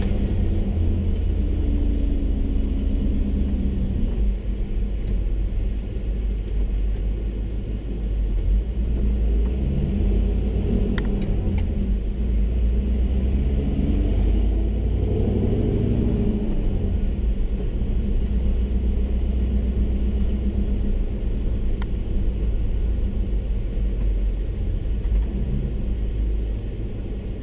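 A 1980 Chevy C30 rollback truck driving down the road, its swapped-in 8.1-liter Vortec 8100 V8 running with a steady low rumble over road noise.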